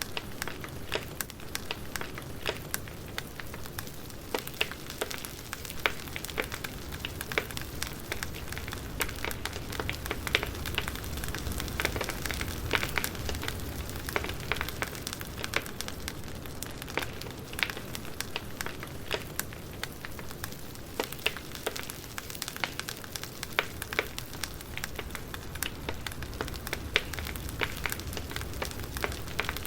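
Campfire burning, with frequent sharp crackles and pops from the wood over a steady low rush of the flames.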